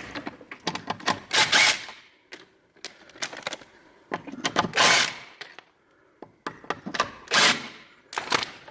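Car jack being worked to raise a car: repeated mechanical clicking and ratcheting, with three louder rasping strokes about three seconds apart.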